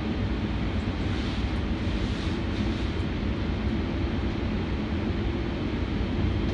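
Kinkisharyo P3010 light rail vehicle running between stations, heard from inside the car: a steady low rumble of wheels on rail with hiss over it. The hiss rises briefly between about one and three seconds in.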